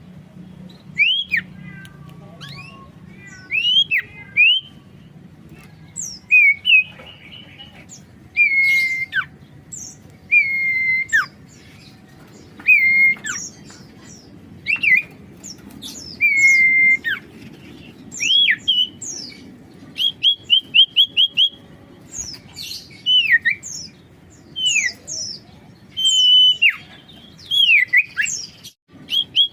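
Common iora (sirtu) singing actively: clear whistled notes that slide down and hook back up, repeated every second or two, mixed with quick runs of short chirps.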